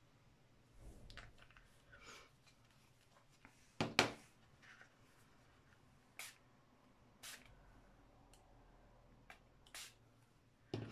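Faint, scattered taps and clicks of a small bottle of shimmer powder being handled over a card and set down on a cutting mat, the sharpest knock about four seconds in.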